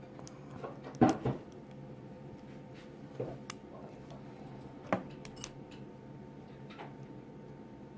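Lock pick working the pin stack of a brass pin-tumbler padlock: a few light metallic clicks and rattles, the loudest about a second in and another sharp click about five seconds in.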